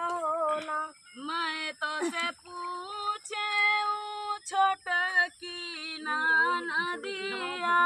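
Women singing a dhaan ropai kajari, a rice-transplanting folk song, in long held phrases that bend in pitch, with no instruments heard.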